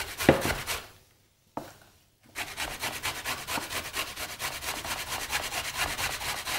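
Celery root grated on the fine side of a metal box grater in quick, even scraping strokes. The grating stops for about a second and a half early on, with one light knock in the pause, then picks up again and keeps a steady rhythm.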